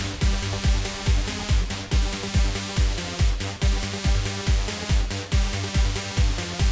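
Background electronic dance music with a steady kick drum, about two beats a second, under sustained synth notes.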